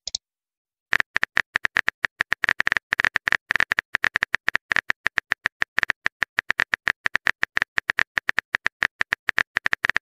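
Smartphone on-screen keyboard click sound effect: a fast, irregular run of short ticks as a text message is typed out. It starts about a second in.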